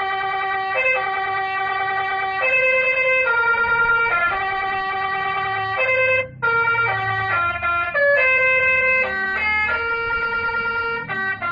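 A 60-watt Basuri telolet horn module playing a tune of held electronic horn notes, the pitch stepping up and down every second or so, with a short break about six seconds in.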